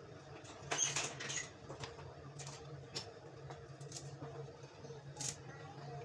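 Kitchen knife cutting and tapping on a wooden chopping board as yardlong beans are chopped and handled: scattered small clicks and knocks, the loudest cluster about a second in and another sharp knock near the end, over a steady low hum.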